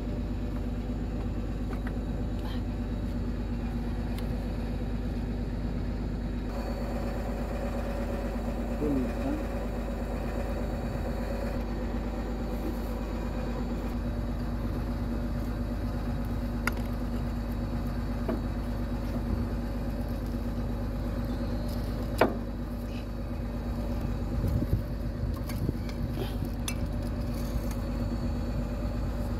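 Kobelco SK200 excavator's diesel engine idling with a steady low drone. A single sharp metallic clink comes about two-thirds of the way through, followed by a few lighter knocks.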